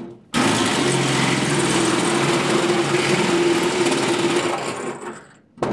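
A power tool cutting a round hole through a thin sheet-metal wall, running steadily with a dense, even noise and a steady hum. It starts abruptly just after the start and fades out near the end.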